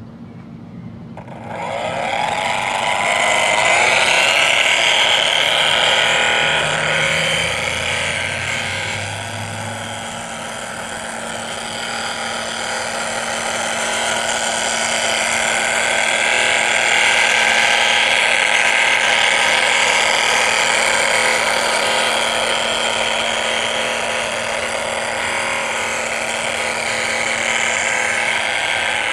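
LGB G-scale model diesel locomotive running along garden track, its drive motor, gears and wheels on the rails giving a loud steady whirring whine that starts suddenly about a second in.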